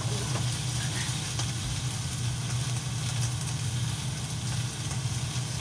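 Food sizzling and crackling in a frying pan, with small scattered pops, over a steady low hum.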